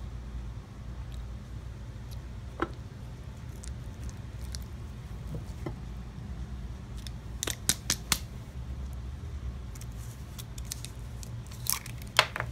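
Small clicks and taps from hands handling a cheeseburger on a plate and reaching among sauce bottles: one click early on, a quick run of three or four about halfway through, and a louder pair near the end. A steady low hum runs underneath.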